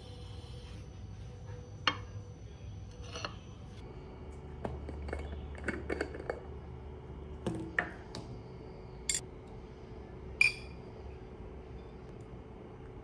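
Tableware handling: a glass mason jar and its lid, and cutlery on a ceramic plate, giving a string of separate sharp clinks and taps, the loudest two in the second half, over a low steady hum.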